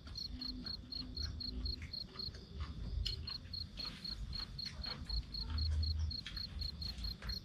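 Cricket chirping steadily, a high pulsing note about five times a second that pauses briefly a couple of seconds in, over a low rumble with scattered light clicks.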